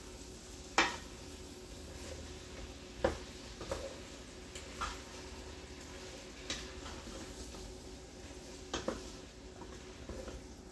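Diced vegetables and butter sizzling faintly in a pot as they are stirred with a spoon, the spoon knocking sharply against the pot several times.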